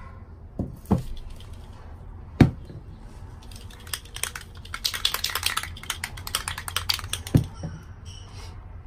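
Aerosol spray can shaken by hand, its mixing ball rattling quickly for about three seconds near the middle. A few sharp knocks come before and after as terra cotta saucers and the can are handled and set down, the loudest about two seconds in.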